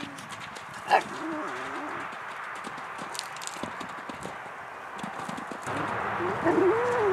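Hoofbeats of a horse cantering over sand arena footing. There is one short sharp sound about a second in, and near the end rising-and-falling whining calls.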